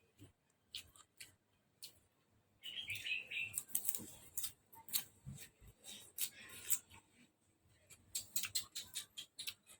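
Close-up eating sounds from a bowl of beef noodle soup: irregular sharp mouth clicks and smacks of chewing, with a denser patch of noise about three seconds in.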